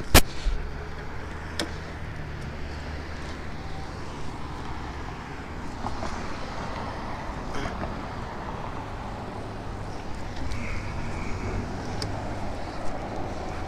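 A sharp knock just after the start, with a fainter click about a second and a half later, over a steady low rumble of road traffic.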